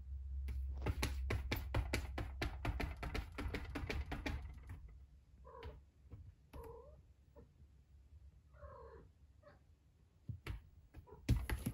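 Four-week-old kittens: a rapid run of clicks and rustles for the first few seconds, then three short, high kitten meows, and a couple of sharp thumps near the end.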